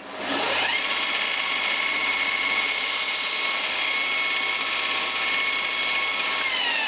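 Belt grinder switched on with a click, its motor whine rising to speed in under a second, then running steadily while a forged steel round punch is ground on the slack of the belt. The whine falls away near the end as the grinder winds down.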